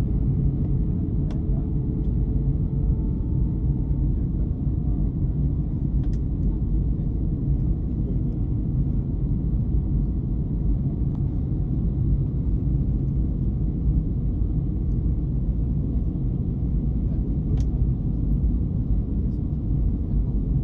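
Cabin noise inside an Airbus A321 airliner descending on approach: a steady low rumble of engines and airflow, with a faint steady hum over it and a few faint ticks.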